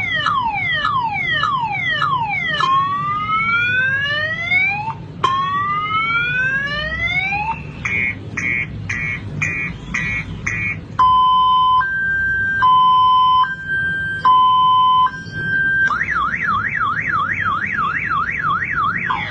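Car-alarm siren sequence cycling through its tones: rapid falling sweeps, then two slow rising whoops, then a quick run of high beeps, then a steady two-tone hi-lo alternation, then a fast up-and-down warble, and falling sweeps again at the end.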